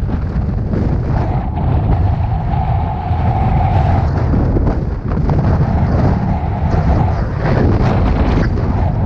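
Heavy wind buffeting on the microphone of a rider on a moving electric unicycle, a dense low rumble throughout. A steady mid-pitched whine sounds about a second in for three seconds, then again briefly later.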